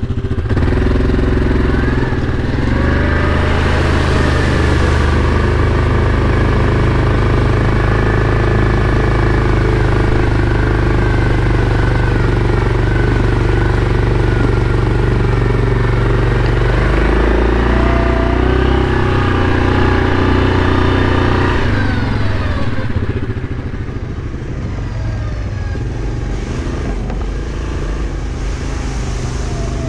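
Yamaha Kodiak ATV engine running under throttle as it wades through a water crossing, with water splashing around the machine. The engine pitch rises and falls, and about 23 seconds in it eases off and runs quieter.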